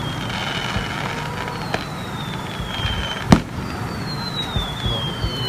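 Fireworks going off: a steady crackle with several long whistles that fall in pitch, and one sharp bang a little over three seconds in.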